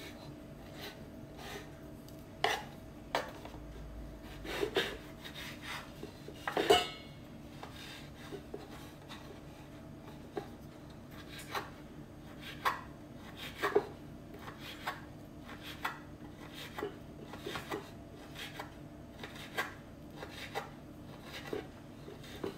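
Small kitchen knife cutting sun-dried tomatoes on a wooden cutting board: irregular taps of the blade against the board, one or two a second, with one louder knock about seven seconds in.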